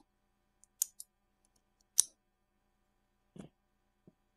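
Small metal bulldog clips clicking as they are fitted onto the plastic walls of a silicone-mold housing, clamping the walls against the seal. A handful of sharp clicks, the loudest about two seconds in.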